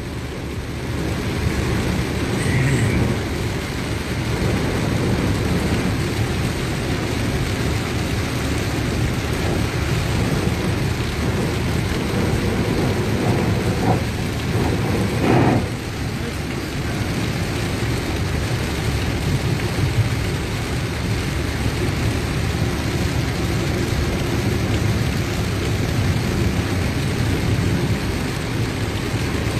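Heavy rain beating on the windscreen and roof of a moving vehicle, heard from inside the cab as a steady dense hiss over road noise. A short louder sound stands out once about halfway through.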